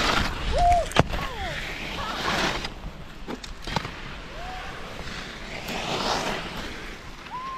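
Skis scraping and sliding over hard, icy snow: a hiss that swells and fades in waves as the skier turns, with a sharp click about a second in.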